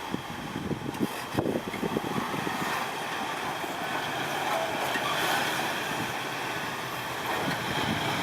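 Off-road Jeep's engine running steadily as it crawls up a rocky ledge.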